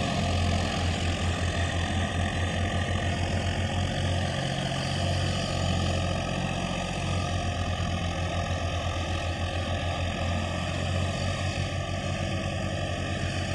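Farm tractor's diesel engine working hard under load as it hauls a loaded trolley through deep water: a steady, low, pulsing drone.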